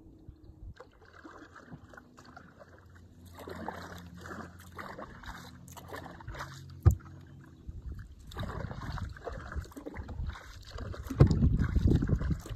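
Kayak paddle strokes splashing and dripping water, coming in repeated bursts, with one sharp knock about seven seconds in. Wind buffets the microphone near the end.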